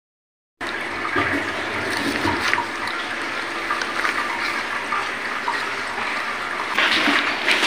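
A steady rush of running water begins a moment in, with small clicks and scrapes of a knife slitting open a catfish's belly on a wooden chopping board.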